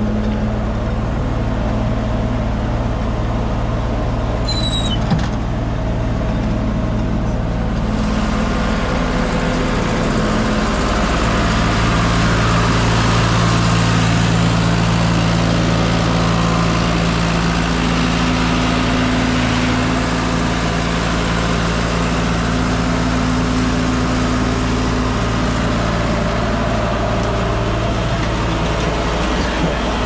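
Tractor engine running steady, driving a PTO sawmill. About eight seconds in, a louder, harsher rushing noise joins it and carries on to near the end. A brief high squeak comes about five seconds in.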